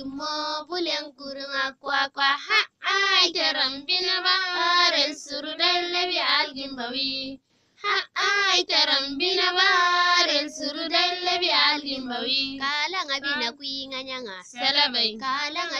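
A high voice singing a melody alone, with no instruments, breaking off for a moment about halfway through before going on.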